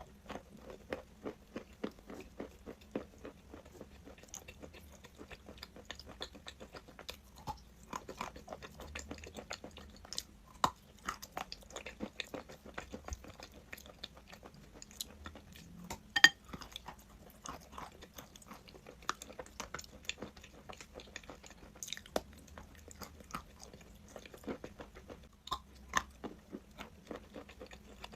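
Someone biting and chewing crunchy chalk: a run of irregular crunches and clicks, the sharpest about 16 seconds in.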